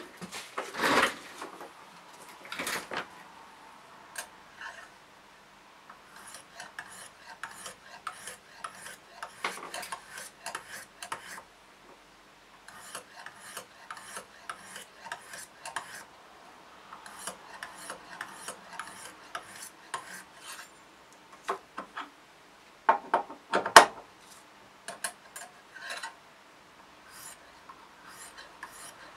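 Knife being honed on a clamp-and-guide-rod sharpening system: the rod-mounted stone scrapes along the clamped blade edge in quick repeated strokes, in runs of a few seconds with short pauses. A louder bump comes about a second in, and a few louder knocks of metal come about three quarters of the way through.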